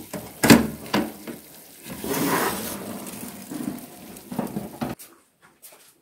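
A metal baking tray being pulled out of a small electric oven with a metal tray gripper, clanking and scraping on the oven rack while the hot food on it sizzles. There are two sharp clanks in the first second. The sound drops to a few faint clicks near the end.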